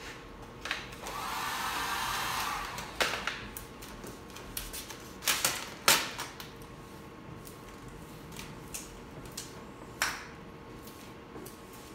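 Vinyl wrap film being worked onto a car door by hand and squeegee: a scraping swish lasting under two seconds about a second in, then scattered crackles and taps as the film is lifted and pressed down.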